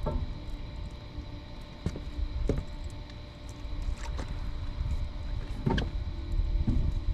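A low rumble with a faint steady high whine, broken by a few scattered knocks and clicks from fishing gear being handled in a boat.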